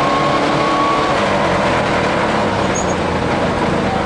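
Rally car's engine running at speed, with road and tyre noise, heard from inside the stripped cockpit. The level stays even throughout.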